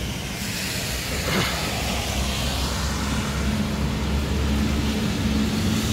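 Road traffic on a wet street: car tyres hissing on the wet pavement, swelling as a car passes about a second in, over a steady low engine hum.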